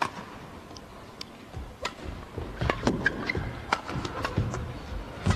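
Badminton rally on an indoor court: sharp racket strikes on the shuttlecock, with short shoe squeaks and footfalls. The hits and footwork come thicker from about two seconds in.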